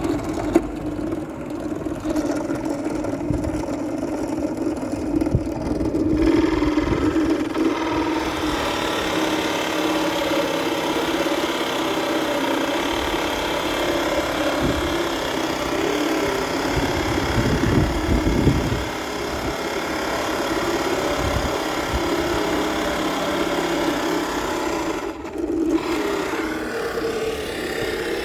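Bench drill press running with a steady motor hum while its large boring bit cuts into a wooden board. The cutting noise builds about six seconds in and carries on, with a brief break near the end.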